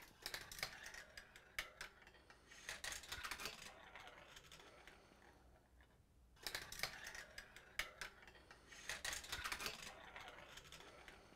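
A marble rolling down a GraviTrax plastic marble run, rattling along the rails and clicking over the track pieces. The same run is heard twice in a row, each pass lasting about five seconds.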